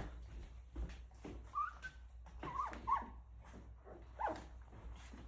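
Three-week-old Rottweiler puppies whimpering: four short high squeaks that bend up and down, among soft clicks and knocks.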